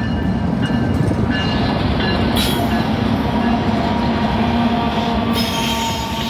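Union Pacific SD70AH-T4 diesel locomotive and a trailing diesel unit passing close by, their engines running steadily with the wheels rolling on the rail.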